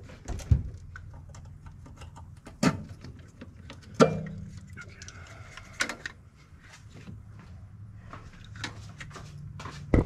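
Scattered plastic clicks and knocks of an engine wiring harness connector being worked loose by hand, its locking tang pried up with a screwdriver while the plug is pulled; the loudest knock comes about four seconds in, over a low steady hum.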